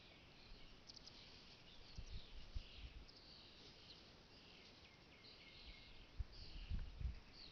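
Faint lakeside ambience: small birds chirping steadily, with two spells of low wind rumble on the microphone, about two seconds in and again near the end.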